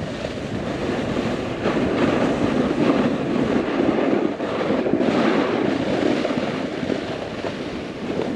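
A snowboard sliding and carving through slushy spring snow, a continuous scraping hiss that swells twice as the board turns, with wind buffeting the microphone.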